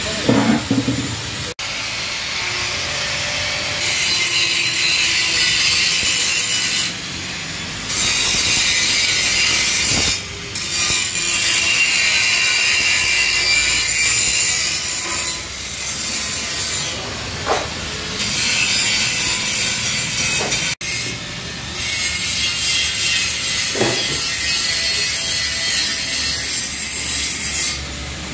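Sandpaper rubbing down the painted metal fuel tank of a Yamaha R15 by hand, a steady rasping scrape in long stretches broken by short pauses, as the old paint is sanded off before respraying.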